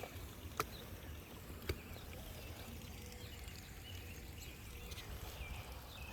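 Outdoor background noise: a steady low rumble with two sharp clicks, one about half a second in and one just under two seconds in.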